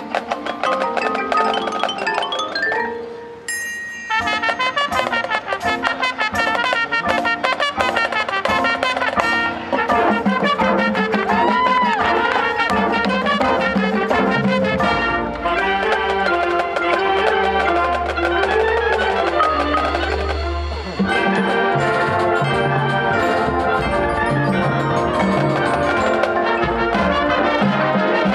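High school marching band playing its field show: quick mallet-percussion runs over brass, with a brief drop in level about three seconds in and a deep sustained low note a little past halfway.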